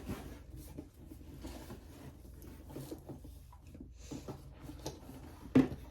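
Light rustling and small clicks of cosmetic boxes and packaging being handled, with one sharper knock near the end.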